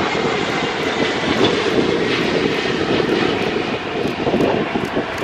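Steady jet engine noise from a landing Boeing 777-300ER's GE90-115B engines: a loud, even rumble with a high whine on top.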